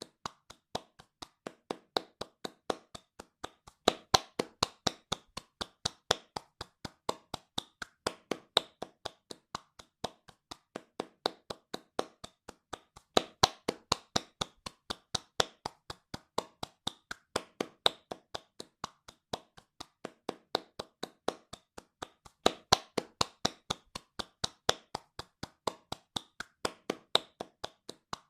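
A pair of hands clapping fast in a steady, even rhythm, about four to five claps a second. Some claps are louder than others, in a swell that comes back every few seconds.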